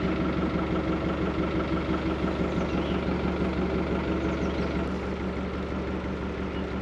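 Narrowboat engine running steadily under way, a constant even drone.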